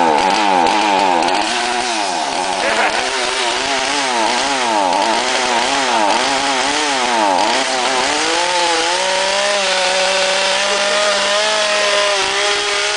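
Two-stroke chainsaw engine running on its own with nobody on the throttle, its revs surging up and down about twice a second. About eight seconds in it climbs and holds at a steady, high rev.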